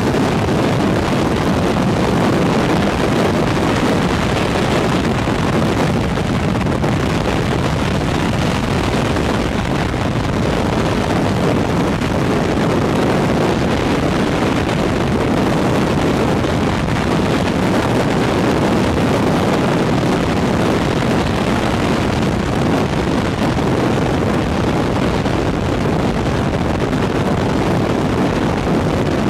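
Freefall airstream: a loud, steady rush of wind buffeting the microphone.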